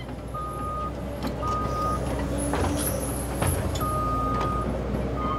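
Cat 314D track excavator's diesel engine running steadily with a low rumble, while a single-tone beeping alarm sounds four times, each beep roughly half a second to a second long. A few sharp knocks cut in.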